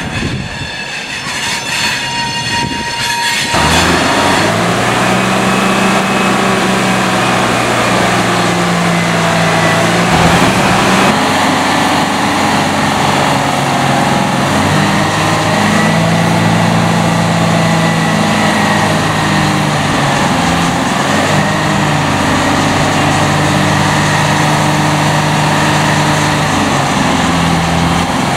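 Locomotive wheels squealing on curved track, high whining tones over rail noise, for the first few seconds. After an abrupt change, the diesel engine of a truck-mounted crane runs steadily, its pitch stepping up and down as it is throttled to work the hoist.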